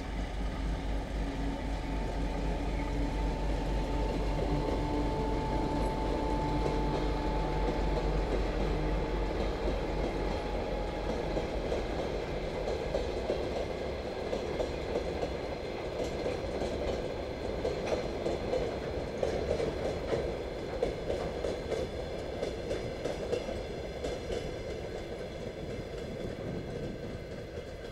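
A 2M62U two-section diesel locomotive passing, its two-stroke diesel engines giving a steady low drone for roughly the first dozen seconds. After that comes the steady rumble and faint clatter of ballast hopper-dispenser wagons rolling over the rails, slowly fading.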